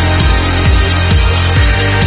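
Background music: an electronic track with a steady kick drum about twice a second and hi-hat ticks over sustained synth notes.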